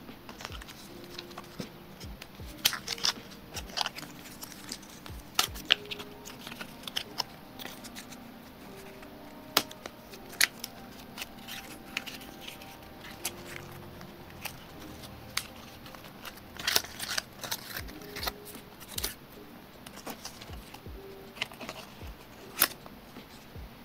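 Paper packaging tray and braided charging cable being handled: an irregular run of sharp clicks, taps and rustles as the paper flaps are opened and the cable is pulled free. Soft background music underneath.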